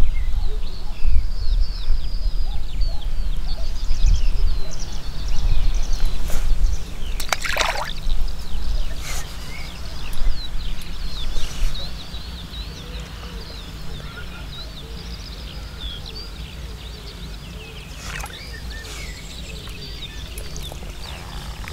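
Riverside scene with songbirds chirping throughout over a low rumbling noise that eases off about halfway through. A few splashes break the water surface, the loudest about seven and a half seconds in.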